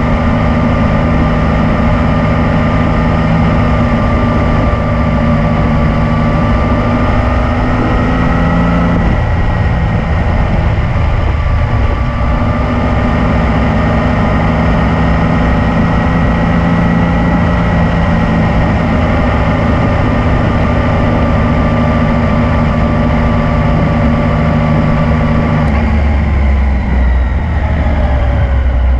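Yamaha MT-09's 847 cc three-cylinder engine running steadily while riding. The engine note shifts briefly about nine seconds in, then falls near the end as the bike slows.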